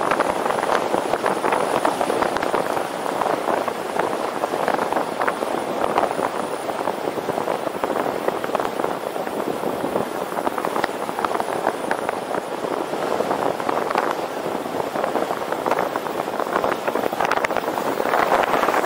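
Steady rush of wind and road noise while riding a bicycle at speed, with many small crackles and buffets throughout.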